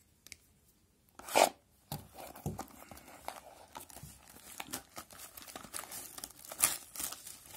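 Plastic shrink-wrap on a sealed card box being cut with scissors and torn off: one loud rip about a second and a half in, then continuous crinkling and tearing of the film.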